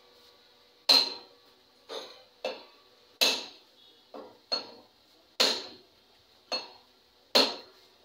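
Hammer blows on metal at the hub of an auto-rickshaw wheel being set: nine sharp metallic strikes, roughly one a second, each ringing briefly.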